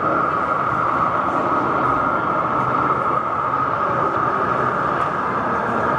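Model diesel trains running on an exhibition layout, giving a steady, unbroken train-engine sound like that of a sound-fitted model.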